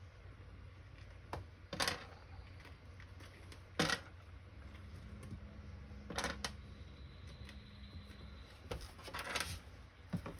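Plastic jump-starter case cover being handled and pressed into place: a few scattered light clicks and knocks, about five over ten seconds, with quiet handling between them.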